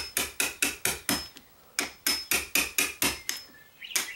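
Hammer tapping a wood chisel, chopping out the mortise for a deadbolt strike plate. The taps come quick and light, about four a second, in two runs with a short pause between, each with a faint metallic ring.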